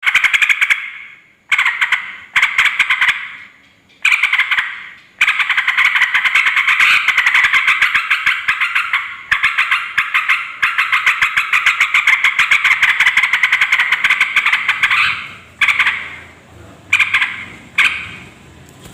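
Yellow-vented bulbul (trucukan) calling noisily: rapid chattering notes in short bursts, then one long unbroken run of about ten seconds, then a few short bursts near the end.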